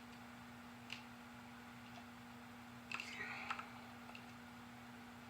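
A few faint clicks and a short light clatter of small hard parts being handled, with a cluster of clicks about three seconds in, over a steady low hum.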